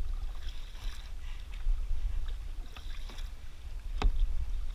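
Kayak paddles dipping into the sea and splashing with each stroke, over a steady low rumble of wind on the microphone. A single sharp knock comes about four seconds in.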